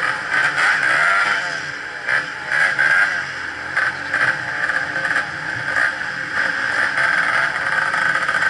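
Two-stroke enduro dirt bike engine revving up and down in repeated bursts as the bike is forced through a rocky stream, over the steady rush of fast-flowing water.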